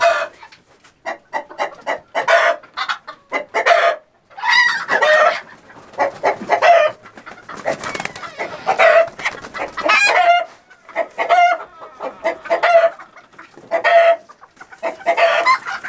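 Chickens giving loud distress squawks over and over as they are grabbed by hand and caged, with a new call every second or so.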